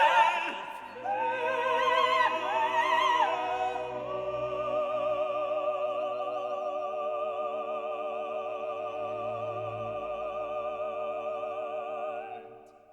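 Operatic singing with orchestral accompaniment: a voice with strong vibrato moves through a short phrase, then settles on a long held note with sustained strings that fades out near the end.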